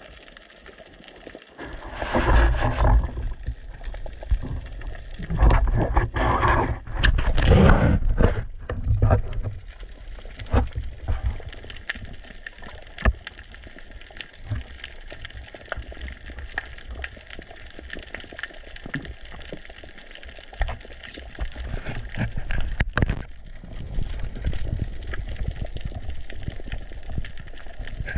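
Muffled underwater noise heard through a camera housing: rumbling surges of moving water, loudest about two seconds in and again from about five to eight seconds, with scattered clicks and knocks over a steady hiss.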